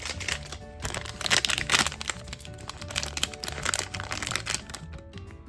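Plastic blind bag crinkling as it is torn open and handled, loudest from about one to two seconds in, over steady background music.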